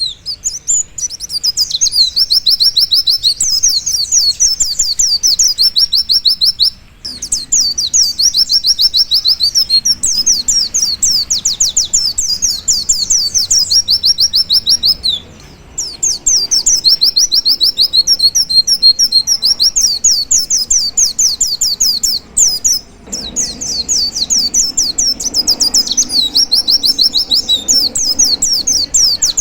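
Male pleci (white-eye) singing in the fast 'nembak' style: long runs of rapid, high, repeated chirping notes, about ten a second, broken by brief pauses three times.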